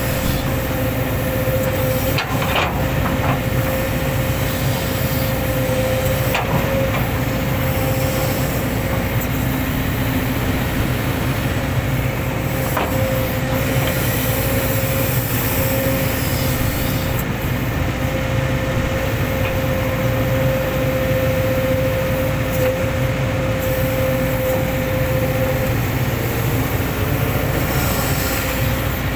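Hitachi hydraulic excavator working: its diesel engine running steadily under load, with a steady whine that drops away near the end and a few sharp knocks from the digging.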